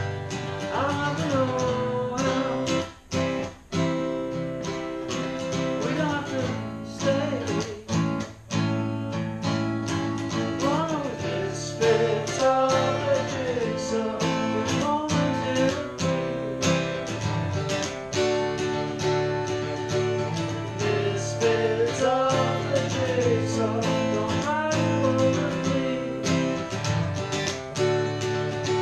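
Two acoustic guitars strummed together in a steady rhythm, with male vocals singing over them in stretches.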